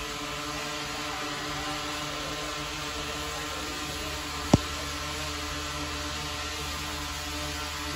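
Steady whir of a quadcopter drone hovering, a hum of several fixed tones, with one sharp click a little past halfway.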